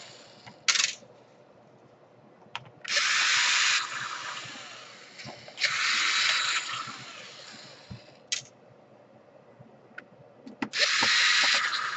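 Electric drill-driver running in short bursts, about a second each and five times in all, backing out the bottom-panel screws of a laptop. Small clicks fall between the bursts.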